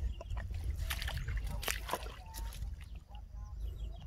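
Belarus 892 tractor's diesel engine running low, with sloshing mud and water and scattered knocks as wood is wedged under the stuck tractor.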